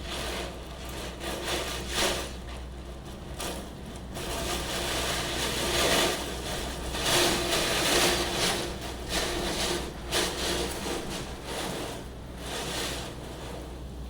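Heavy rain of a storm pouring down, its rushing noise swelling and easing irregularly and loudest midway, over a steady low hum.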